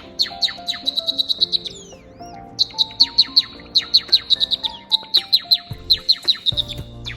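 Java sparrow singing its courtship song: a fast run of clicking, chirping notes, many sweeping sharply downward, with a short pause about two seconds in.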